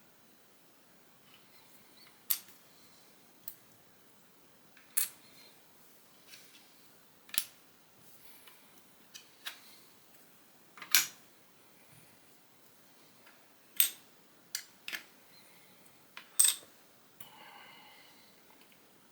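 Lego plastic pieces being snapped together and handled: about a dozen sharp clicks a second or two apart, with a short rustle of pieces near the end.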